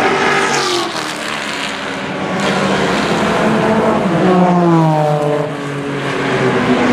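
Several race cars passing at speed, engines revving. About four seconds in, one loud engine's pitch falls steeply as it goes by, and more cars follow near the end.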